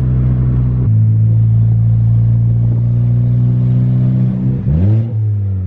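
Big-turbo Ford Focus ST engine running at steady revs under way, then revving up quickly near the end and dropping back.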